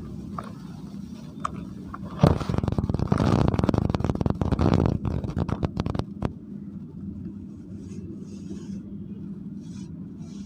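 Hands crumbling dry dirt clumps and letting them fall into a plastic bucket: a few small clicks, then a dense crackling and pattering from about two seconds in that stops at about six seconds. A faint steady hum runs underneath.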